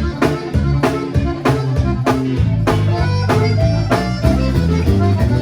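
Live conjunto music: button accordion and bajo sexto over bass and a steady drum beat.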